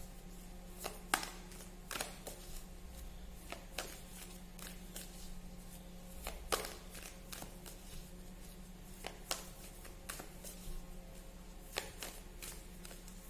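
Tarot cards being handled and shuffled: scattered flicks and taps of card stock, irregularly spaced, over a low steady hum.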